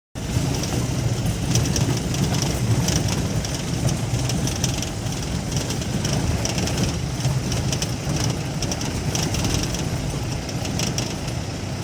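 Safari jeep's engine running as it drives along a rough forest track, a steady low rumble with irregular clattering and rattling on top.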